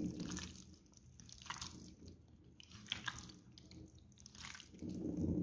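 Wet squelching of raw chicken pieces being stirred with a spoon through a thick yogurt-and-spice marinade in a plastic bowl, in faint, irregular strokes.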